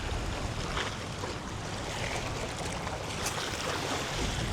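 Wind buffeting the microphone over bay water lapping at the shore: a steady rushing noise with a low rumble.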